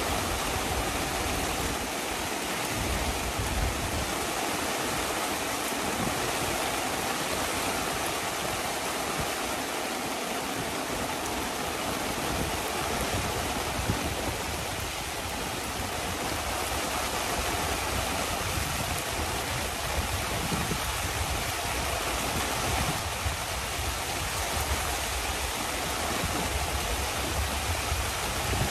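Heavy rain falling steadily, a dense even hiss with a few sharper drop impacts now and then.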